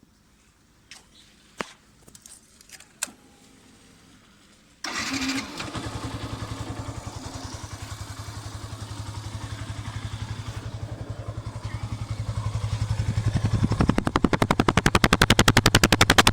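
A few faint clicks and knocks, then a motorcycle engine starts about five seconds in and runs with an even pulsing exhaust beat. It grows louder, and from about 14 seconds the exhaust gives a loud, rapid, evenly spaced popping.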